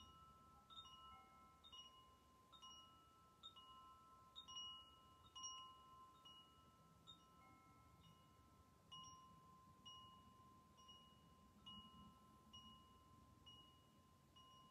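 Faint, high chime notes tinkling about once a second over a soft, steady ringing tone.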